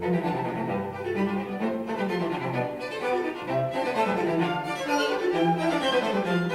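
Classical string music, violins and cellos, played back through a pair of active bookshelf speakers and picked up by a recorder in the room. Several quick runs of falling notes come through in the middle.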